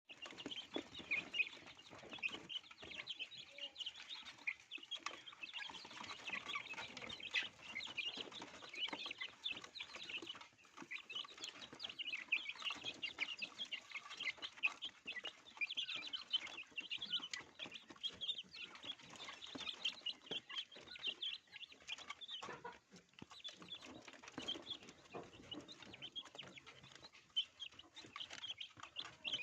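A flock of chickens calling: many short, overlapping high cheeps and clucks, with no let-up.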